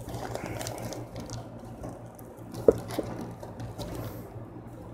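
Clear plastic bag and a deflated vinyl beach ball crinkling and rustling as they are handled, with a couple of sharper crackles a little under three seconds in, over a steady low hum.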